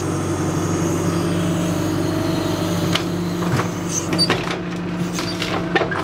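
John Deere 310SE backhoe's diesel engine running steadily, with a few sharp knocks in the second half as split firewood pieces drop from the backhoe-mounted splitter into a wooden trailer.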